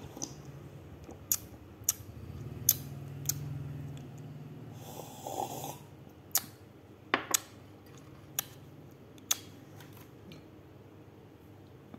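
A string of about eight sharp clicks and clinks from glassware being handled, over a low steady hum, with a short rustle about five seconds in.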